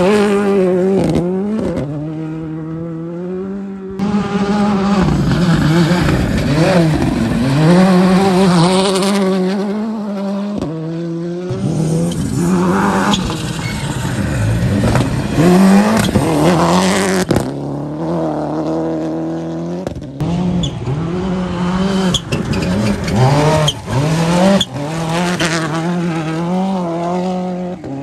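Rally cars passing one after another on a gravel stage, each engine revving hard and dropping back repeatedly through gear changes, with the noise of tyres sliding on gravel. The sound switches abruptly from one car to the next several times.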